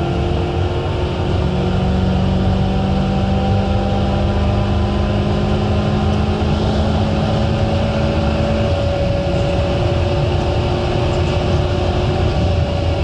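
2006 Mitsubishi Colt Ralliart's turbocharged 1.5-litre four-cylinder engine pulling hard at full throttle down a long straight, heard from inside the cabin, its pitch climbing slowly, over steady road and tyre rumble.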